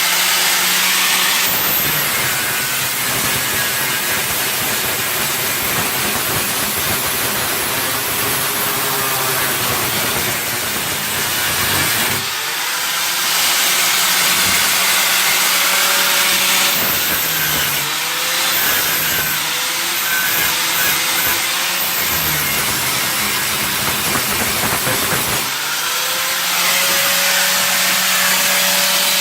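Angle grinder grinding down welded steel patches on a car body: a rough grinding noise under load, easing twice, about 12 and 25 seconds in, to a steady whine of the free-spinning disc, which rises back to speed.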